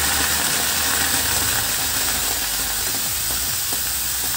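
Tomato wedges hissing in a hot, dry kadai over a gas burner, cooking without oil: a steady hiss with a low hum beneath.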